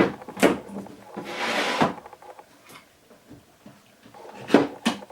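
Clunks and a short scraping slide as a converted bar clamp is fitted into a bench hole and clamped down on a wooden work top. Two knocks open it, a rasp follows about a second and a half in, and two more clicks come near the end.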